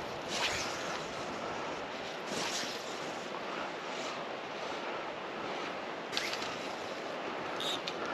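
Steady rushing noise of wind blowing outdoors, with a few brief swishes.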